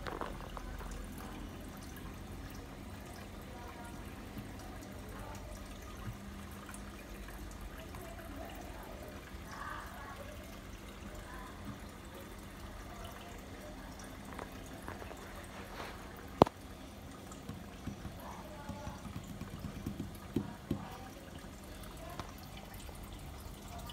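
Water trickling and bubbling in a small fish tank, steady throughout, with one sharp click about two-thirds of the way through and a few soft knocks after it.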